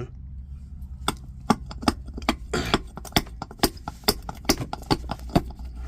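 Irregular sharp metallic clinks and knocks, about fifteen over several seconds, as a tool works at a powder-actuated nail driven into a concrete floor in a failed attempt to pull it out.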